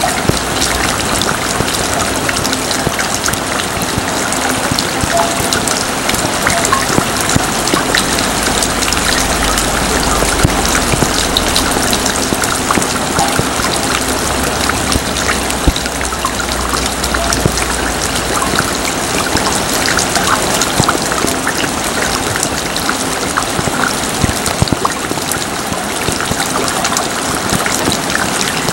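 Heavy rain falling steadily: a dense, even hiss with many small drop ticks through it.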